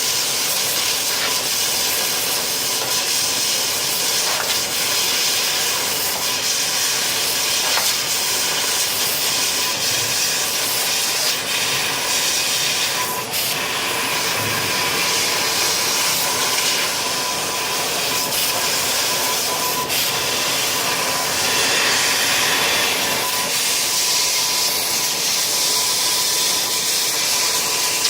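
Fiber laser CNC cutting machine (500 W Raycus source) running a cut on 0.6 mm sheet: a steady, loud hiss of gas and air, with a faint steady high tone and a few light clicks.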